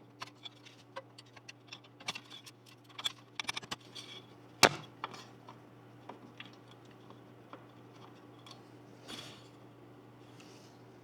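Small clicks and rattles of computer parts and hardware being handled during a PC build, with one sharp, loud click about four and a half seconds in, over a steady low hum.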